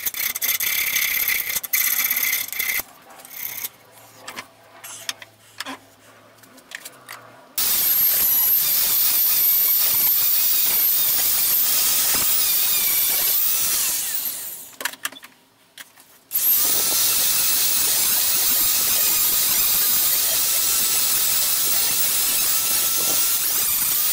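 Handheld electric rotary tool running at high speed with a small polishing wheel pressed against the steel tang of a knife blade, a steady high whine. It starts about a third of the way in, cuts out for a couple of seconds past the middle, then runs again. Before it starts, short scraping strokes of hand sanding on the steel.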